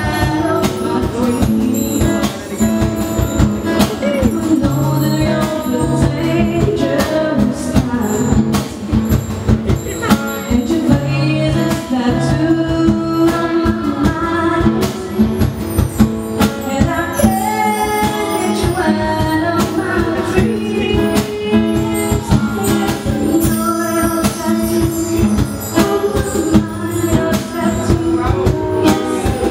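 Live acoustic band: a woman singing into a microphone over acoustic guitar and hand percussion, with frequent short drum and shaker-like hits throughout.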